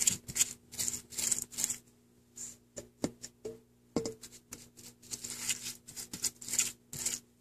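Basting brush stroking and dabbing barbecue sauce onto a raw slab of pork ribs: a run of short, wet, scratchy strokes, with a few light clicks near the middle as the brush is dipped back into the sauce.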